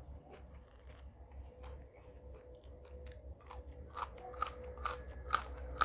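Close-mic'd chewing of crisp raw vegetables, crunching with each bite. The crunches are sparse at first, then come louder and about twice a second from around four seconds in.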